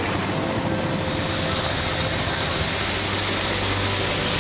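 Coffee processing machine running steadily as green coffee beans pour through its chute: a continuous mechanical hum with a dense hiss over it.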